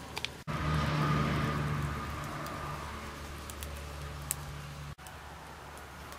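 A low steady drone, loudest for the first second or so after an abrupt cut and then level, with scattered small crackles from the charcoal fire under the grill.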